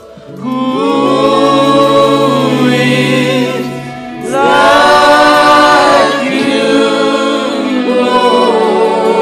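Gospel worship singing: a soloist and a backing choir hold long notes in harmony, in two phrases with a short breath between them about four seconds in.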